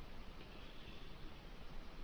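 Faint steady hiss of room tone, with no distinct sound in it.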